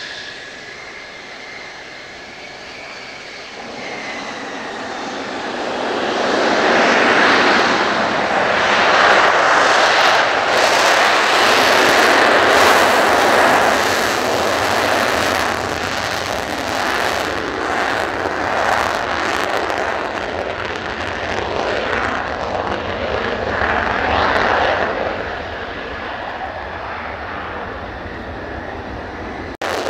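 Mitsubishi F-2 fighter's F110 turbofan jet engine: a steady high whine at first, then building over a few seconds into the loud roar of an afterburner takeoff run, which holds and then slowly fades as the jet climbs away.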